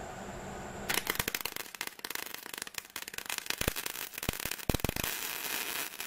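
Wire-feed welder's arc crackling and spitting as a bead is run on steel plate, starting about a second in and holding steady until it cuts off.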